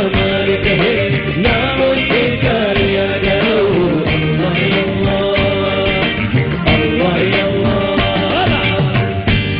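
Music in a South Asian film-song style: a wavering lead melody over a steady, full accompaniment, at an even loud level.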